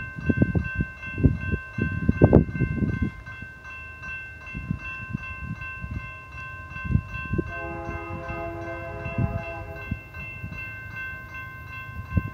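Wind gusting on the microphone, with the air horn of an approaching BNSF freight locomotive sounding once in the distance for about two and a half seconds, starting a little past halfway.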